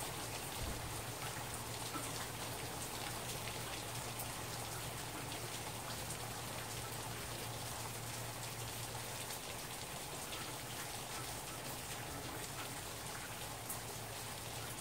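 Steady rain falling, with many individual drops ticking on nearby surfaces.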